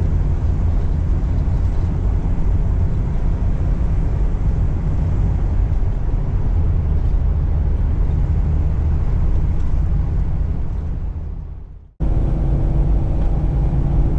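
Steady low engine and road rumble of an RV motorhome on the move, heard from inside the cabin. It fades out about eleven seconds in and returns abruptly a second later, now with a faint steady hum on top.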